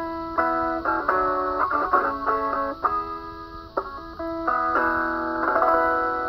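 Solo acoustic guitar played between sung lines: a run of plucked notes and strums. Near the end it settles on a chord that is left ringing.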